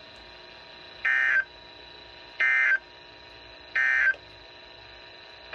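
Emergency Alert System end-of-message signal: three short, identical bursts of buzzy SAME digital data tones, about 1.4 seconds apart, marking the end of the alert. A faint steady high whine runs underneath.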